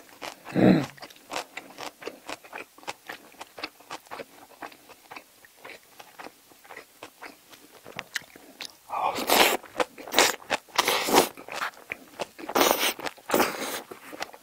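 Close-miked, wet chewing and biting of spicy braised seafood and bean sprouts, with a steady run of small clicks. About nine seconds in come several louder, noisy bursts as a big chopstick mouthful is slurped in and chewed.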